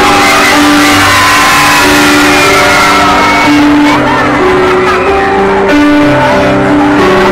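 Loud live concert music through a PA: a keyboard plays long held notes that change every second or so. Over the first few seconds, the crowd's screams or sung notes waver above it.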